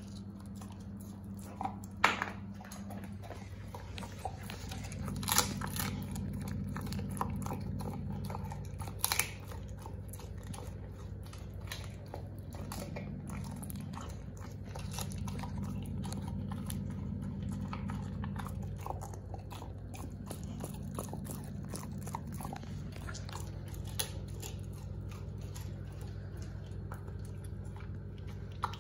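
English springer spaniel crunching and chewing a raw chicken wing, its bones cracking in a steady run of wet, irregular crunches. A few crunches stand out louder in the first ten seconds, over a low steady hum.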